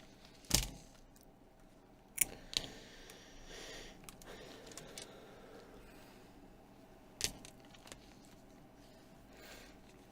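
A few sharp clicks and taps of small tablet parts being handled on a workbench: one about half a second in, two close together around two seconds in, and one about seven seconds in, with faint rustling between.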